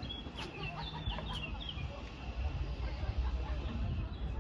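Birds calling: a quick run of short, high chirping notes in the first second and a half, over a low rumble that grows louder from about halfway.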